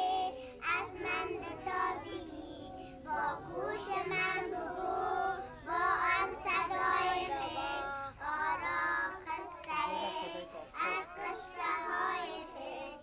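Young children singing a song in Dari, phrase after phrase.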